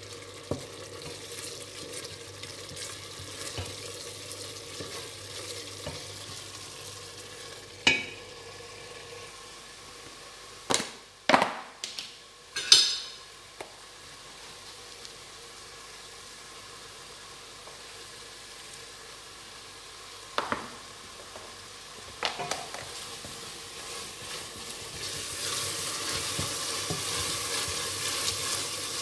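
Pepper-and-onion soup base sizzling in a steel pot as it fries, stirred with a wooden spatula. A few sharp clacks of utensils against the pot and a tub come in the middle, and the sizzling grows louder near the end.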